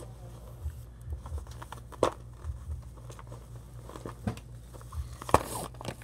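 Crinkling and rustling of a paper card being handled close to the microphone, with scattered light clicks and two sharper knocks, one about two seconds in and one near the end.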